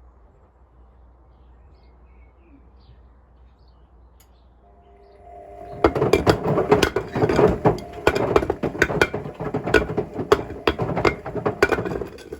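Hotpoint WMFUG742 washing machine drum at rest with a faint hum, then starting to turn about five seconds in with a brief motor whine, and bricks tumbling inside it, banging loudly and irregularly.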